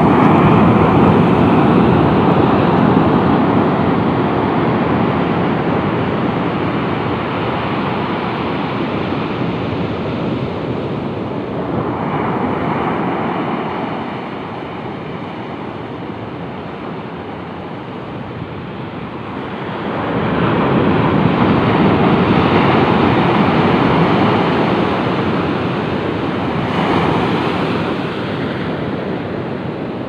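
Surf breaking on a sandy beach: waves crash and wash up the shore in a series of swells, loudest right at the start and again about twenty seconds in, easing off between them.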